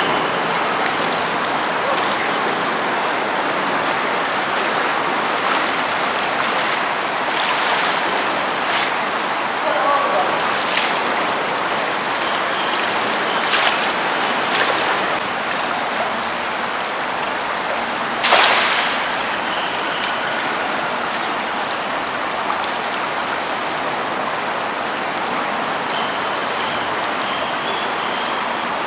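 River water flowing and rippling steadily around a wading fisherman's legs. Several short splashes come through as a cast net is dragged through the shallows and hauled in by hand; the sharpest is a little past the middle.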